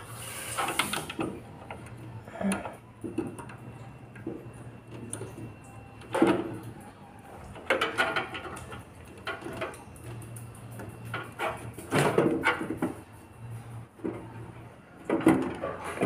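Hands handling a SATA cable and a hard disk drive in a steel computer case: scattered clicks, knocks and rustles every few seconds as the cable is fitted to the drive.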